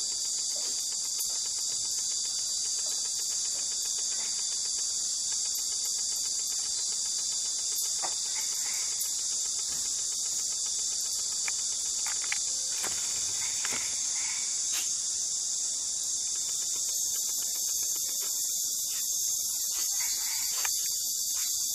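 Night insect chorus of crickets and katydids: a dense, continuous high-pitched buzzing trill, with a few light clicks and knocks under it.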